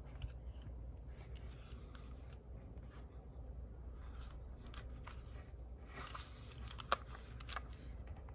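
Handling noise from a Sony WM-EX641 cassette Walkman being turned over in the hand: its plastic casing rubbing against fingers, with scattered light clicks. Rubbing and clicking pick up about six seconds in, with one sharp click about seven seconds in.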